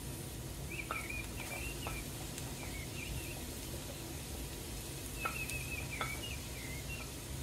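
Birds chirping in short clusters, about a second in and again around five to six seconds in, over a steady low hum and light sizzling from onions frying in oil in the pan.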